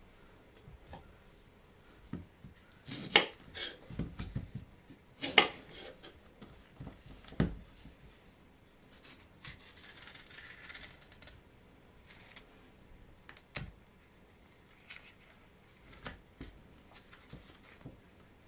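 A kitchen knife cutting the ends off a banana on a wooden cutting board, with a few sharp knocks of blade and board, the loudest in the first six seconds. Softer scraping and rubbing follow as the banana peel is pulled away.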